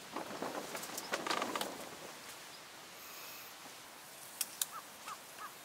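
A few light taps and rattles of handling at first, then a small bird giving several short chirps near the end.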